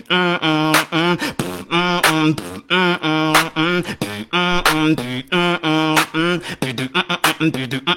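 Beatboxer performing: short pitched vocal notes with a wavering pitch repeat in a steady pattern, cut through by sharp percussive clicks. Near the end the beat turns into rapid, tightly spaced clicks.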